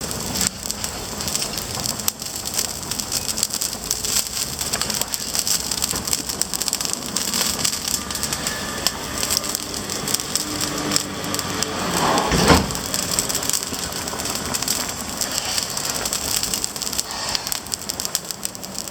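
Wood fire burning with a steady, dense crackle, with a louder flare of crackling about twelve seconds in.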